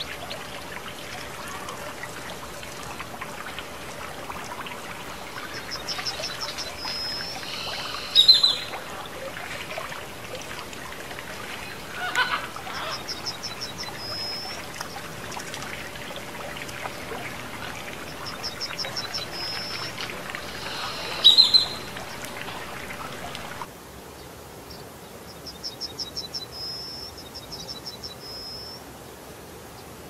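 Fountain water trickling steadily, with a small bird repeating a short high song every six seconds or so: a quick trill of ticks ending in a brief whistled note. Twice a sharp, louder call stands out, and about three-quarters of the way through the water sound stops suddenly while the song goes on.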